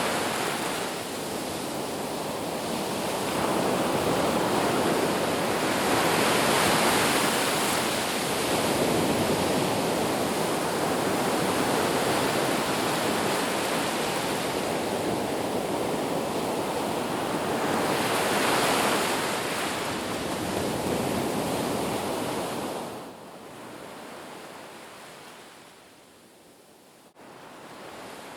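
Sea waves washing onto the shore, a steady rush that swells and ebbs in slow surges. About 23 seconds in it falls away to a quieter wash.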